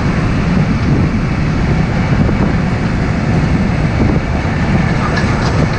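Steady road noise from riding a motorcycle close alongside a Hino Ranger diesel truck: the truck's engine and tyres running, mixed with wind on the microphone.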